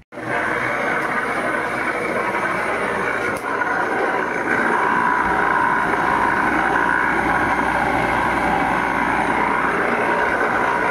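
Electric ring (side-channel) air blower for aeration running steadily under power: a noisy, even rush of air with a high hum, a little louder from about four seconds in.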